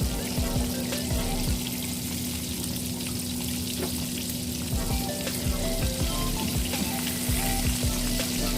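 Chicken deep-frying in hot oil: a steady sizzle with scattered small crackles.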